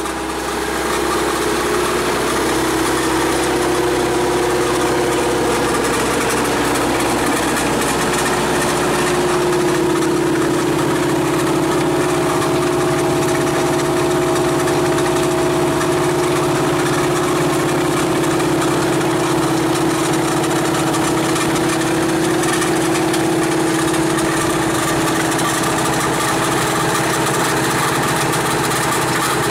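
Truck-mounted rock drill rig running: its engine and hydraulic drive make a loud, steady mechanical din with a constant hum, swelling slightly about a second in and then holding.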